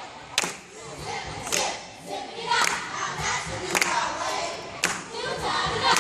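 Many children's voices at once from a stage cast, chanting or shouting together, with several sharp knocks.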